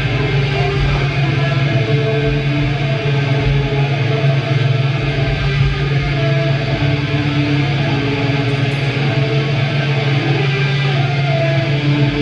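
Guitar playing a run of shifting notes over a steady low drone, during a sound check.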